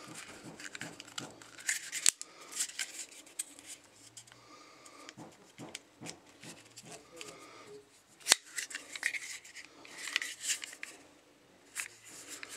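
Handling noise of a North American Arms Black Widow .22 Magnum mini revolver being folded into and out of its plastic folding grip holster: scattered clicks and rubbing, with one sharp click about eight seconds in.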